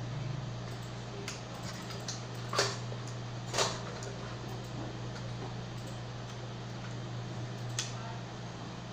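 A few sharp clicks and taps from printer parts being handled during disassembly, the loudest two about two and a half and three and a half seconds in, over a steady low hum.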